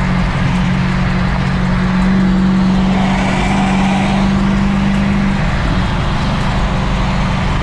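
Car driving at a steady speed: a steady engine drone over road noise, the drone weakening about five and a half seconds in.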